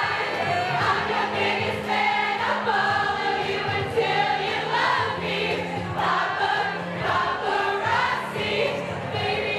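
Karaoke singing: a girl sings into a microphone over a backing track while a crowd of teenagers sings along with her, like a choir.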